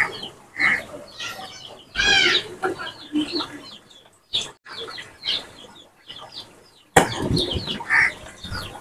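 Chickens clucking, with short calls scattered throughout and the loudest call about two seconds in.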